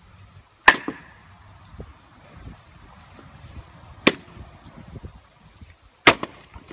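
Splitting axe striking red oak rounds three times, each blow a sharp crack of steel into wood, about two to three seconds apart. The first and last blows are the loudest.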